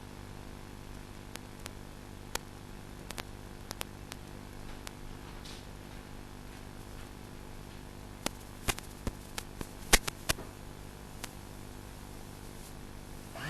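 Faint steady low hum with scattered light clicks and taps, more of them about two thirds of the way in.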